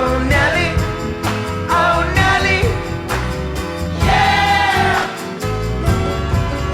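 Indie song with wordless sung vocals, like a choir of held vowels, over bass and drums.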